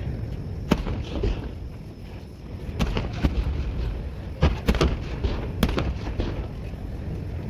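Aerial fireworks bursting: a run of sharp bangs at irregular intervals, several close together in the middle, over a low rumble.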